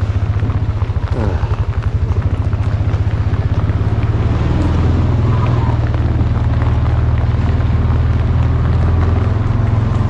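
A small vehicle engine running steadily, a low hum that pulses for the first few seconds and then evens out.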